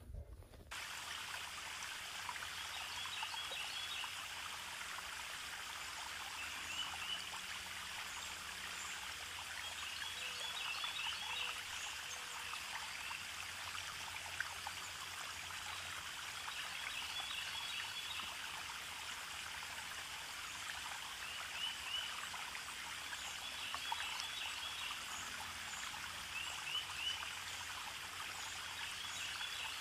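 Steady running water, like a stream, with clusters of brief high chirps coming back every few seconds. It starts abruptly about a second in.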